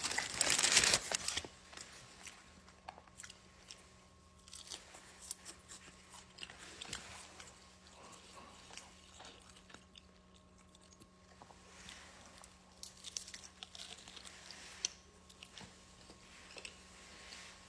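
Crunching bites and chewing of extra-crispy fried lemon pepper chicken wings, a scatter of faint sharp crunches close to the mouth. A loud rustling burst in the first second, like a paper bag or wrapper being handled.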